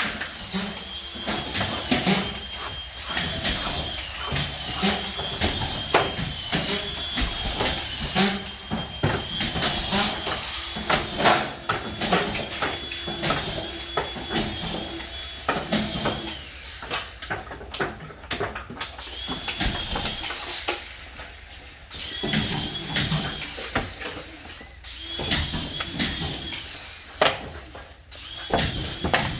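Drywall being hung: a screwgun whines, its pitch dipping briefly each time a screw is driven, many times over, among frequent knocks and clatter of sheets and tools being handled.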